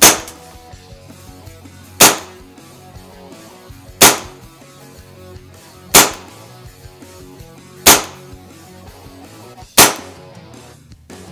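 Tokyo Marui Detonics .45 green-gas blowback airsoft pistol firing single shots into a chronograph: six sharp reports, evenly spaced about two seconds apart, each shot cycling the slide.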